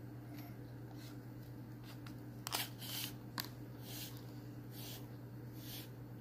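Leather lace being drawn through the punched holes of a small leather keychain and handled: a string of brief swishes, roughly one or two a second, the loudest near the middle. A steady low hum runs underneath.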